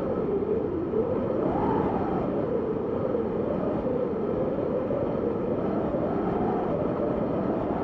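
Synthesized wind made from filtered noise: a steady rushing sound with a hollow whistling band that slowly wavers up and down in pitch, rising highest about two seconds in and again near the end.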